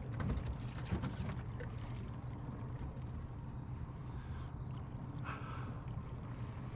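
Steady low hum and water noise aboard a small boat on calm water, with a few soft clicks and splashes in the first second.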